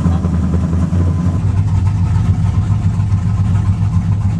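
Cammed V8 truck engine idling steadily with a deep, even note.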